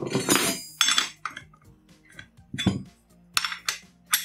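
Steel spanners clinking as they are handled and fitted in turn onto the scooter's front axle nut, trying sizes to find the one that fits: a series of sharp metallic clinks, several close together at the start and single ones near the middle and end.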